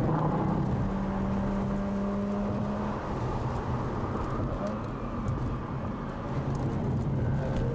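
Mazda RX-8's two-rotor Renesis rotary engine running on track, heard from inside the cabin over road and wind noise. Its steady note holds, then falls away about three seconds in, and strengthens again near the end.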